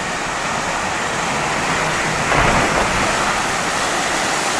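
A monsoon-swollen hillside waterfall pouring hard: a dense, steady rush of falling water that grows louder a little over two seconds in.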